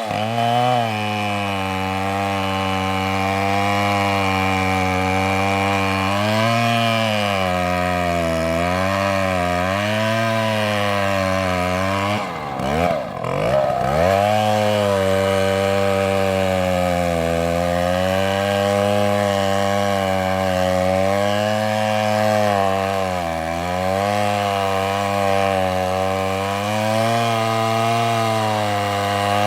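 Chainsaw running under load, cutting into wood, its engine pitch wavering as the bar bites. About halfway through the revs drop sharply, then climb back to full speed as cutting resumes.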